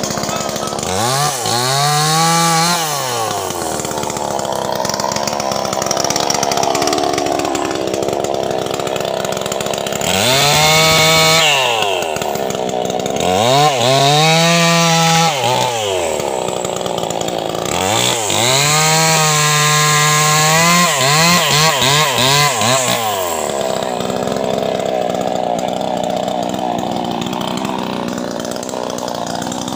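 Two-stroke chainsaw cutting through felled tree limbs, revved up to full throttle and dropped back to idle four times, with a run of quick throttle blips in the last long cut and a fifth rev starting near the end.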